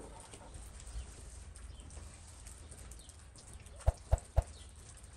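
Quiet outdoor ambience, then three quick light knocks in a row about four seconds in.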